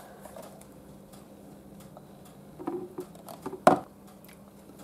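Metal spoon scooping and scraping food into a plastic blender cup, with small clicks and taps and one sharp knock against the cup about three and a half seconds in. A faint steady hum sits underneath.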